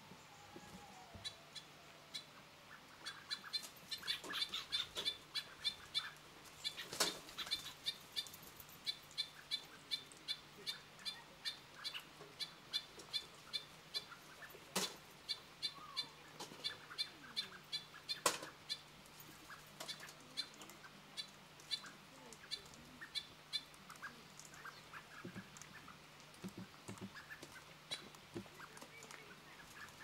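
A kākā's bill clicking and crunching on food held in its foot: a run of short, sharp clicks about two to three a second, with a few louder cracks, tailing off near the end. Faint calls of other birds sit behind it.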